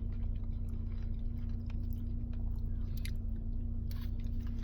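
A person chewing a mouthful of crispy fried chicken sandwich, with a few faint crunching clicks, over a steady low hum.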